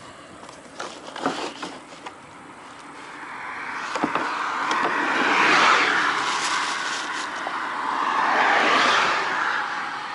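Road traffic going past: two vehicles pass one after another, each rising and fading away, the first loudest about five and a half seconds in and the second near the end. A few light knocks and rattles come in the first two seconds.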